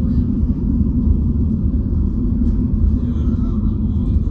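An intercity bus's engine and road noise heard inside the passenger cabin while driving: a steady low rumble.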